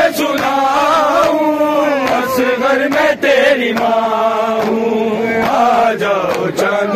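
Men's voices chanting a noha, a Shia mourning lament, in a slow, wavering, sustained melody. Sharp slaps cut through every so often.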